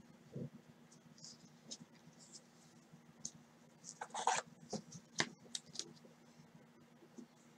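Faint scratching and clicking of trading cards being handled and slid into plastic card sleeves, with a louder cluster of rustles about four seconds in and a sharp click a second later.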